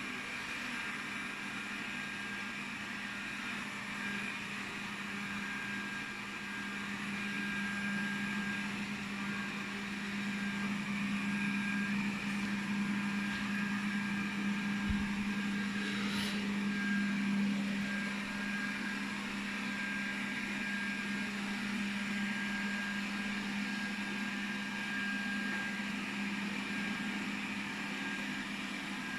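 Cecotec Conga robot vacuum running: a steady motor hum with a thin high whine, growing slightly louder in the middle, with a couple of brief knocks about halfway through.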